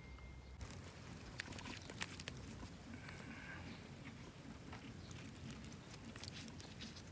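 Faint scattered crackles and ticks over a low rumble, from beef strips grilling on bamboo skewers over hot embers.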